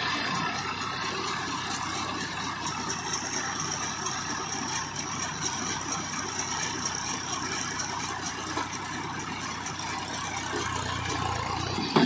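Massey Ferguson 241 DI tractor's diesel engine running steadily while it pulls and drives a small round baler through windrowed rice straw. A thin, high, steady whine joins for a few seconds in the middle.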